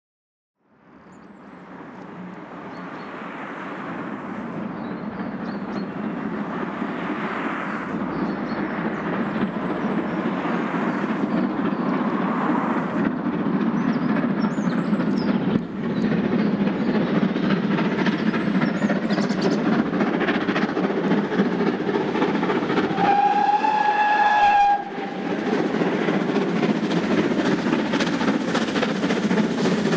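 Two 0-6-0 pannier tank steam locomotives hauling a train, their rapid exhaust and running noise fading in and growing louder as they approach. A steam whistle sounds once near the end for about a second and a half.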